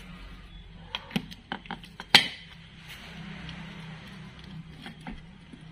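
Steel washers and metal parts clinking and tapping against the steel pivot of a welded front swing arm as they are fitted by hand: a string of short sharp clinks, the loudest about two seconds in, then a few scattered ones.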